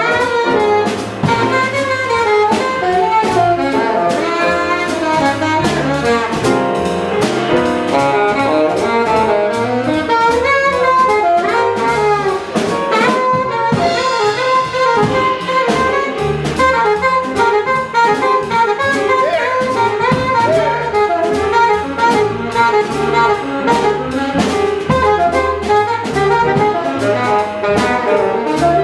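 Live jazz quintet playing: an alto saxophone carries the lead line over piano, upright bass and drum kit with cymbals.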